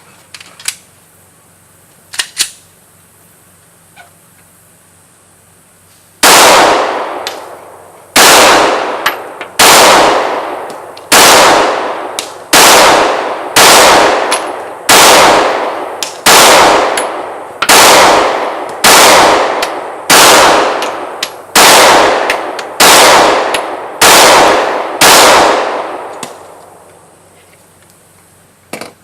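About fifteen 9mm pistol shots from a Glock 19, fired one at a time a little over a second apart, each with a long trailing echo. A few faint clicks of handling come first.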